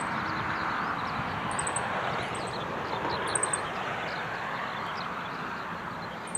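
Chestnut-eared bunting singing: short, high notes that recur every second or two over a steady rushing background noise.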